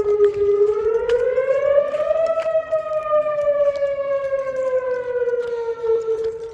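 Outdoor warning siren sounding a loud wail, a single strong tone with overtones. Its pitch rises about two seconds in, then slowly falls, and the sound drops away right at the end.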